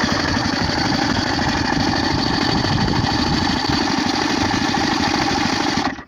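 DT-75 crawler tractor's engine running loud and steady, then cutting off abruptly near the end.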